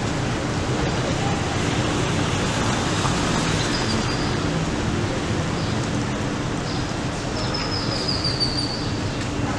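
City street ambience: a steady hum of traffic, with a few high chirps near the end.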